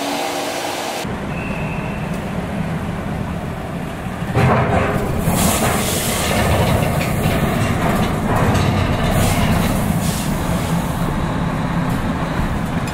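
Inside a heavy truck's cab: the diesel engine running low and the tyres rumbling and clattering as the truck rolls off the ferry over its steel ramp, getting louder about four seconds in.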